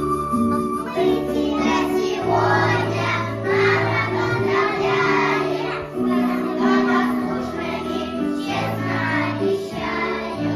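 A group of young children singing a children's song together, starting about a second in, over an instrumental accompaniment with sustained bass and melody notes.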